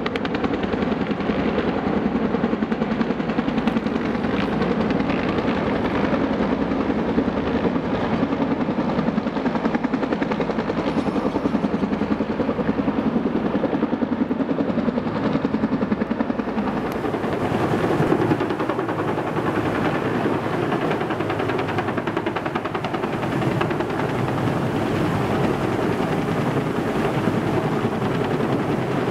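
Bell UH-1H Huey helicopter running loud and steady, its two-bladed main rotor beating in a rapid pulse over the turbine. About halfway through the sound shifts and turns brighter and hissier.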